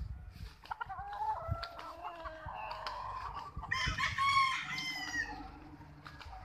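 Gamefowl roosters crowing. A fainter crow runs through the first half, then a louder, longer crow comes about four seconds in and drops slightly in pitch as it ends.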